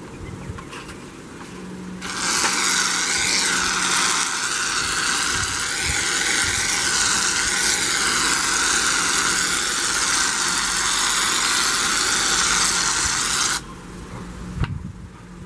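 Aerosol can of shaving cream spraying foam into an aluminium pie tin: a loud, steady, slightly wavering hiss that starts about two seconds in and cuts off suddenly near the end.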